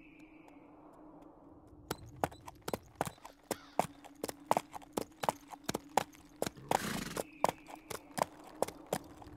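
Horses' hooves clip-clopping at a walk on hard ground: sharp, irregular hoofbeats a few to the second, starting about two seconds in, over a steady low hum. A brief rush of noise comes near seven seconds.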